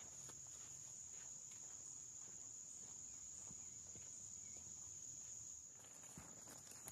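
A faint insect chorus: a steady, high-pitched drone that eases a little near the end.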